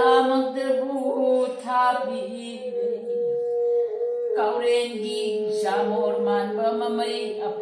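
An elderly woman singing a slow melody in phrases, with a man's instrument holding long steady notes under her voice and following her pitch. There is a short break in the singing a little past the middle.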